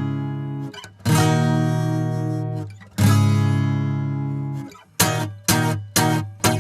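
Acoustic guitar strumming, recorded through a Lauten Audio LA-320 tube condenser microphone. Full chords are struck about every two seconds and left to ring, then four short, choppy strums come near the end.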